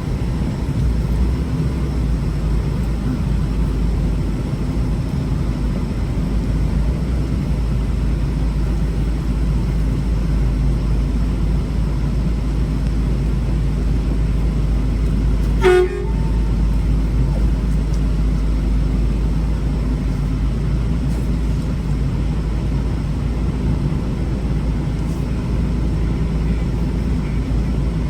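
Steady low rumble of an idling truck engine, with one short horn toot a little past the middle.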